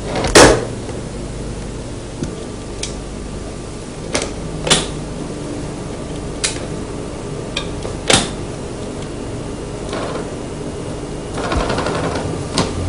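Scattered sharp clicks and knocks at an office desk, a dozen or so spaced irregularly, the loudest about half a second in, over a steady low hum.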